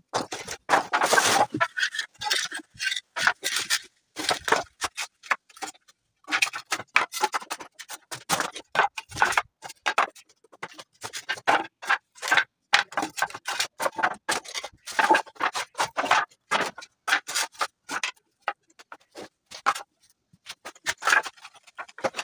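Loose, dismantled pallet boards being handled and laid down on a concrete floor: irregular wooden knocks and clatters, with some scraping as boards slide into place.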